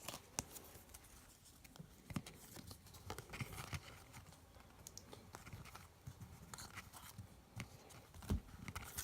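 Faint rustling and light clicks of trading cards being handled and flipped through one by one.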